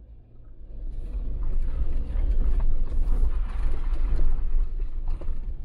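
Jeep Wrangler Unlimited rolling slowly over a rocky, rutted stretch of dirt trail, heard from inside the cabin: tyres crunching over rock and gravel, with scattered knocks and creaks from the body and suspension over a low rumble. It swells up from quiet within the first second.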